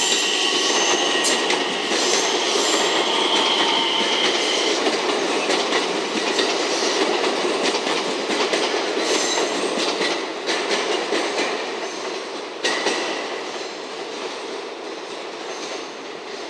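A JR West 227 series electric multiple unit rolling past at close range, its wheels clattering over rail joints and points, with a steady high wheel squeal in the first few seconds. The sound fades as the train draws away near the end.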